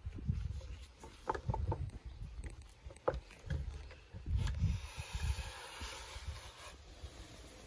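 A few sharp wooden clicks and knocks as a wooden bookbinder's plough is handled and fitted on a lying press, over irregular low thumps and rumble, with a soft hiss for a couple of seconds in the middle.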